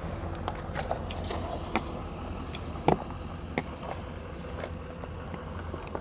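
A screw being driven by hand with a Phillips screwdriver into the RV sidewall to mount a power inlet. Scattered clicks and light knocks, the loudest a little before halfway, over a steady low hum.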